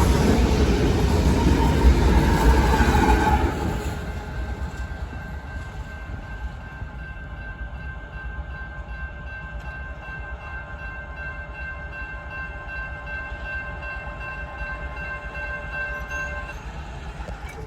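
Coal train rolling past loudly, the rumble of the cars dropping off sharply about three and a half seconds in as the train moves on. A fainter rumble stays, with a steady multi-pitched tone held until near the end.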